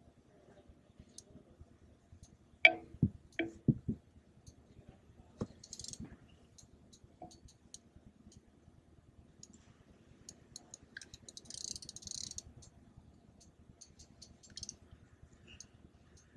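Fishing rod and reel gear clicking and knocking against a plastic kayak while a hooked fish is played. There are scattered ticks throughout and a quick run of about five loud knocks around three seconds in. Two short hissing bursts come near six seconds and near twelve seconds in.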